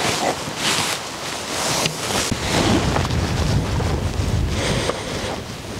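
Wind buffeting the microphone, a rough rushing noise with a low rumble that rises and falls in gusts.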